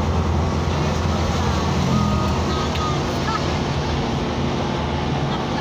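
Isuzu Elf minibus's diesel engine running on the move, heard from inside the cab with steady road and wind noise; the engine note changes about two seconds in.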